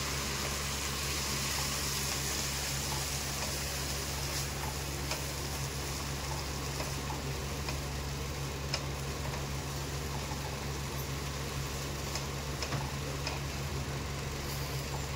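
Onion and ginger-garlic masala sizzling in oil in a kadai just after a splash of water, the sizzle easing after the first few seconds, with a few light clicks of a stirring spoon over a steady low hum.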